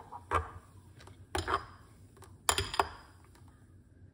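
Metal spoon clinking against a glass mixing bowl while stirring a blended beetroot drink: several separate clinks with a short ring, a second or so apart.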